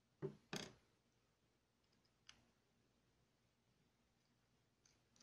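Faint clicks and knocks of a small Torx screwdriver working the pocket-clip screws out of a folding knife's G10 handle: two sharp knocks close together near the start, then a few faint clicks.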